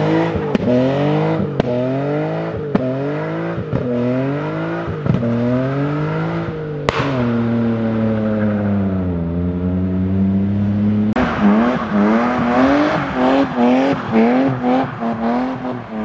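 A drifting BMW E36 estate's engine revs up and drops back about once a second under the throttle, then one long rev falls away and holds. About eleven seconds in, the sound cuts to another car revving in quick, short pulses, about two a second, over a rushing hiss of tyre noise.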